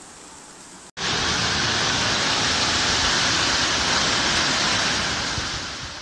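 Hailstorm: a loud, steady hiss of hail and rain pouring down on roofs and a street awash with hailstones. It starts abruptly about a second in and fades out near the end, after a faint steady noise at the start.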